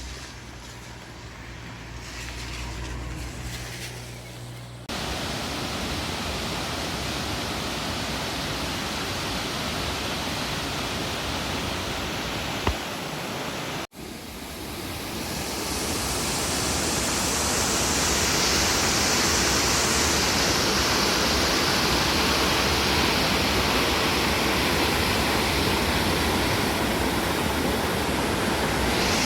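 Rushing water of a mountain stream or waterfall, a steady even roar. It grows louder about five seconds in, breaks off briefly near the middle and comes back louder and brighter.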